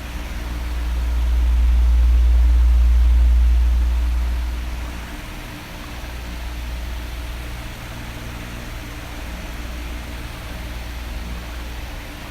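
Electric oscillating fan running: a steady rush of air over a faint motor hum. The air rush and a low rumble swell up over the first few seconds, fade again, and start to swell once more near the end as the fan turns toward and away.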